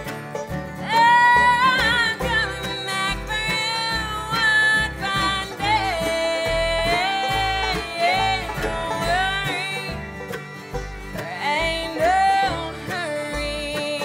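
Bluegrass band playing live, with banjo, mandolin, acoustic guitars, upright bass and fiddle together, a sliding lead melody on top and a steady bass pulse underneath.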